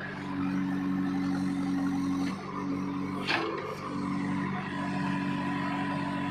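Background music with steady held low notes that break off about two seconds in and come back a second and a half later, mixed with what sounds like a vehicle engine running; a short sharp rising sweep sounds a little after three seconds.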